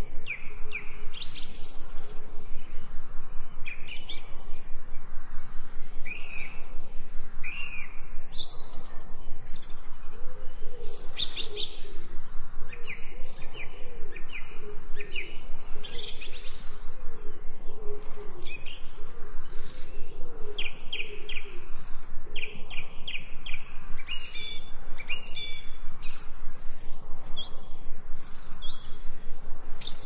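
Several songbirds chirping and singing in overlapping short, repeated calls, mixed as 8D audio that pans around the listener. From about ten seconds in, a lower, wavering bird call runs under the chirps for about ten seconds.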